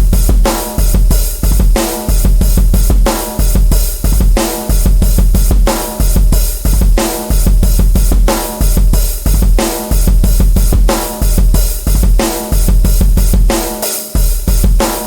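Drum kit playing a steady, repeating beat with a heavy bass drum, snare and cymbals, about one strong accent every three-quarters of a second.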